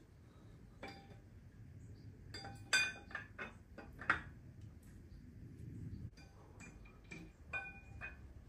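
Camshafts being laid into the bearing saddles of a BMW S38 cylinder head: a scatter of light metallic clinks and taps with brief ringing, the loudest around three and four seconds in.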